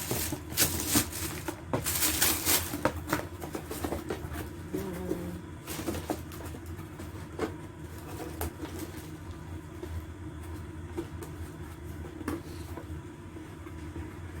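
Rustling and clicking of items and packaging being handled, densest in the first few seconds and then occasional single clicks, over a steady low hum.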